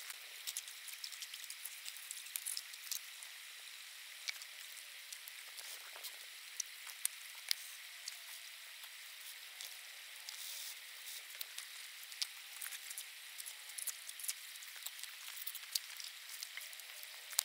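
Shallow creek water running as a steady hiss, with many sharp clicks and knocks of gravel and rocks being shoveled from the creek bed and handled.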